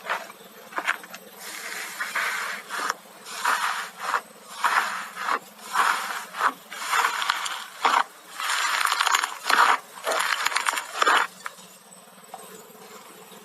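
Slime being squeezed and stretched by hand: a run of squelching bursts, roughly one a second, with sharp pops among them, stopping about eleven seconds in.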